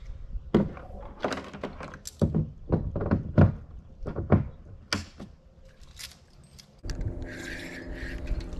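Hollow knocks and clatter of fishing gear being handled in and against a plastic kayak, a dozen or so sharp thunks in a row. Near the end they give way to a steady whir.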